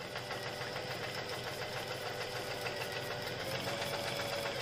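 New Home Janome 641 sewing machine stitching through fabric at a steady fast speed, its needle mechanism running with a rapid, even rhythm.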